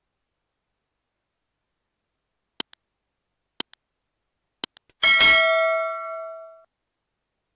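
Subscribe-reminder overlay sound effect: three quick double mouse clicks about a second apart, then a notification bell chime that rings and fades out over about a second and a half.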